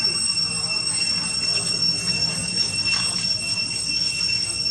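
A steady high-pitched whine holding one pitch throughout, over a low hum.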